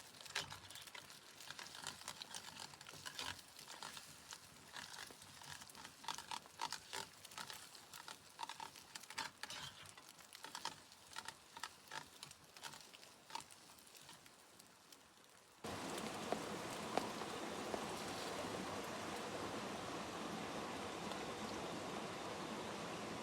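Irregular clicks and rustles for about fifteen seconds, then an abrupt cut to the steady hiss of rain.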